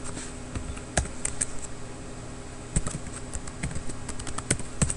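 Typing on a computer keyboard: a run of irregular key clicks as a username and password are entered, with a few louder keystrokes standing out.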